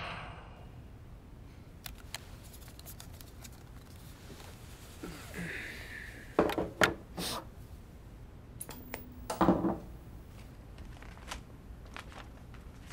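Scattered small plastic clicks and rustles as a game controller and a TV remote are handled. There are a few louder knocks about halfway through and again a few seconds later as the controller is set down on the coffee table.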